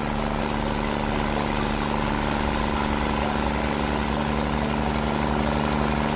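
Carlton 7015 stump grinder running steadily, its engine making an even hum with a constant hiss over it.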